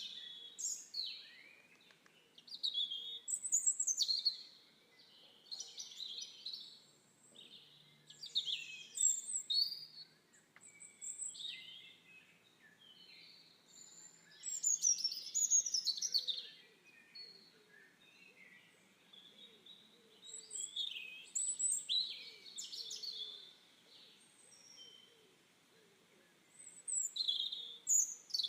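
Songbirds singing in short chirping and trilling phrases, a new phrase every one to three seconds with brief pauses between.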